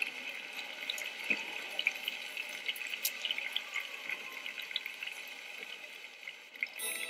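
Theatre audience applauding steadily, a dense clatter of many hands clapping. Music cuts in just before the end.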